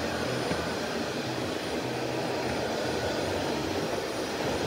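Shark Navigator Lift-Away Professional upright vacuum cleaner running, its motor and suction making a continuous, even rushing drone.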